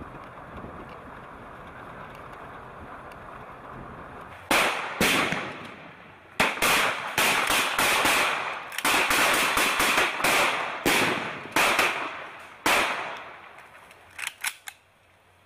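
Kalashnikov-pattern assault rifles firing irregular single shots and quick pairs, starting about four and a half seconds in, each shot sharp with a short echo; a few fainter shots near the end. Before the firing, a steady rushing noise.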